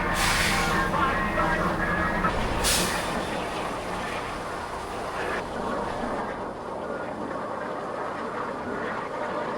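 Two short hisses, the first at the start and the second about two and a half seconds later, over a steady low vehicle rumble that drops away after about two and a half seconds.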